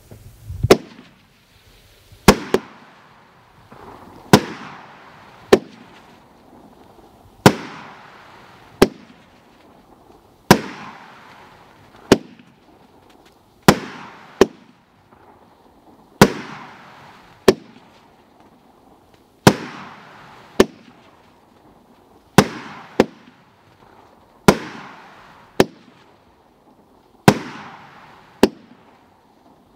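Red Rhino "Pirates Code" firework cake firing aerial shots one after another: sharp bangs, often in pairs about a second apart, a pair every three seconds or so. Each bang is trailed by a hiss that fades.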